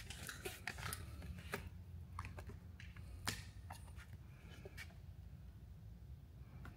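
Faint scattered clicks and taps of a plastic motor-oil bottle being handled and brought to the generator's oil-fill funnel, over a low steady hum. The clicks thin out in the last couple of seconds.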